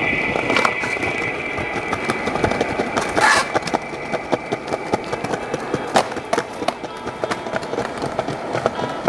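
Skateboard rolling on concrete paving slabs, the wheels clicking over the slab joints, with board clacks and landings from flatground tricks. There is a louder clatter about three seconds in and a sharp knock about six seconds in.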